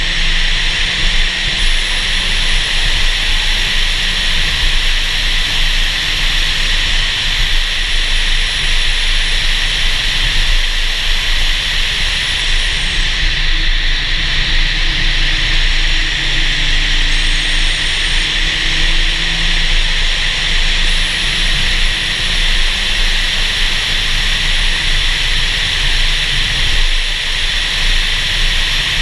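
Car driving at speed on a winding road, heard from a camera mounted on its bonnet: a steady rush of wind over the microphone with the engine's drone beneath. A thin high whine rises and falls over it, dropping away about halfway through and coming back.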